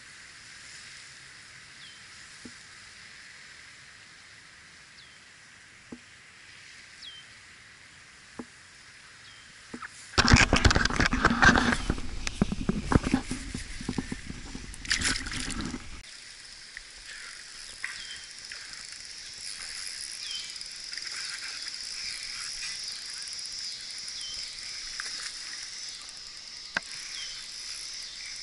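Quiet pond-side ambience with a faint short chirp repeating every second or so. About ten seconds in, a loud rush of handling and water noise lasts several seconds as a caught largemouth bass is lowered into the water and released. After that a steady high chirring of insects sets in.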